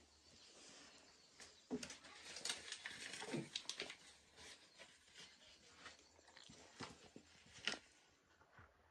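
Faint squishing and scraping of a hand kneading a soft, crumbly food mixture in a metal bowl, with a few sharper clicks where fingers knock against the bowl.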